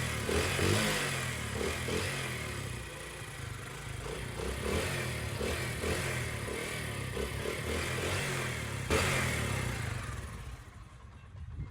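Motorcycle engine running steadily, the engine whose noise problem has been repaired. A single sharp knock about nine seconds in, and the sound fades near the end.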